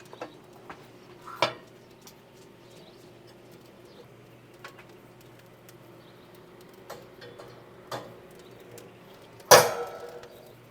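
A few scattered clinks and knocks, the loudest a ringing clank about nine and a half seconds in, with a faint steady hum underneath.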